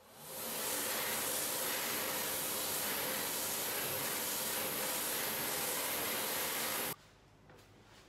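Electric hand dryer blowing air with a steady hiss as a hand is held under it. It spins up over the first second and cuts off suddenly about seven seconds in, when the hand is taken away.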